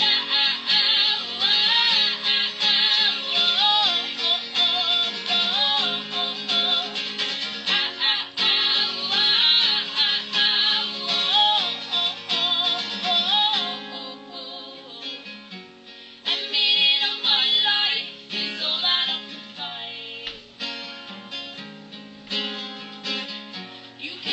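A live song with strummed acoustic guitar and singing, getting quieter about halfway through.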